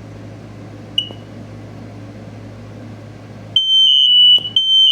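Smoke alarms being set off for a test. One short high chirp comes about a second in, then about three and a half seconds in a loud, steady, high-pitched alarm tone starts and holds, with two close pitches from more than one alarm sounding together.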